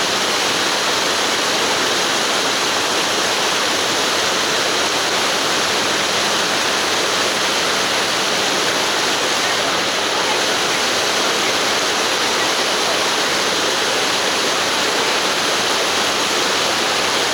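Steady, loud rush of moving river water, unbroken throughout.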